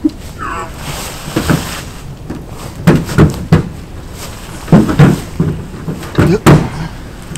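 Men grunting and straining in short bursts as they heave a deer carcass up into a pickup truck's bed, with knocks against the truck near the end.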